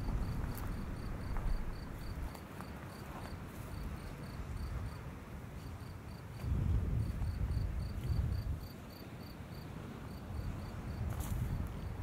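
An insect chirping in a steady train of short, high pips, about four a second, over a low rumble that swells up about halfway through and again near the end.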